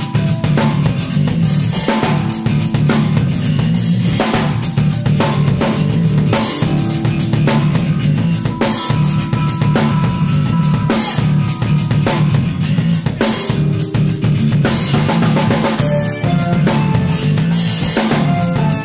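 Live band playing: a drum kit with busy kick, snare and cymbal hits over a steady electric bass line, with some held tones above.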